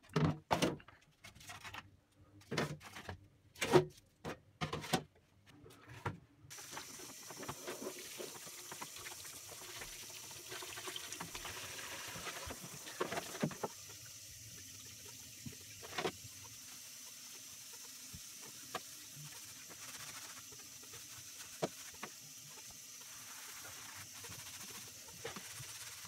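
Sheet-metal parts of a shashlik maker knocking and clanking against each other and a plastic basin as they are dipped in water, in a quick run of separate knocks over the first six seconds. Then water runs steadily into the basin while the parts are scrubbed with a sponge, with an occasional metal click.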